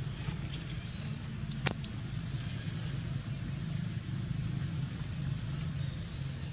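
A steady low rumble with faint scattered ticks, and a single sharp click about one and a half seconds in.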